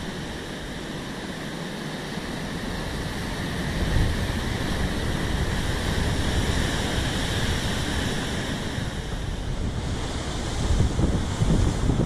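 Heavy surf crashing on the rocks below, with a large wave breaking in a surge of noise about four seconds in and the crash and spray running on for several seconds. Near the end, wind gusts buffet the microphone.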